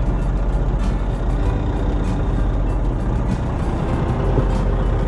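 Fishing boat's engine running steadily, a constant low rumble.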